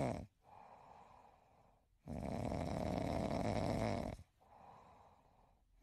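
A sleeping man snoring: each snore lasts about two seconds and comes roughly every four seconds, with much quieter breathing between.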